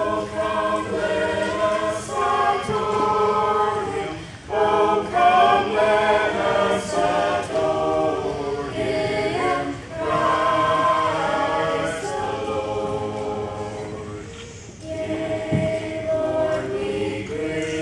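School choir singing together, in phrases broken by short pauses about four seconds in, near ten seconds and near fifteen seconds.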